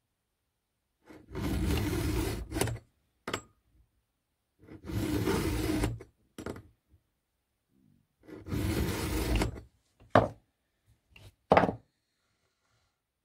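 Round file in a file-holder guide rasping across a chainsaw chain's cutter: three strokes of about a second each, sharpening the cutter. Short knocks come between and after the strokes, the sharpest two near the end.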